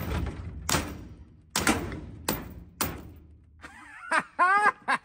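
Two claw hammers striking a combination padlock on a steel chain from both sides, about five sharp metal blows with short ringing, trying to knock the lock open. Near the end a short, loud shout from a voice.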